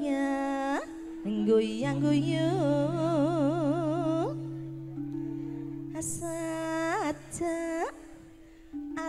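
Campursari langgam music: long held sung notes with wide, regular vibrato, each phrase ending in a quick upward slide, over steady sustained lower notes. The music drops quieter briefly near the end.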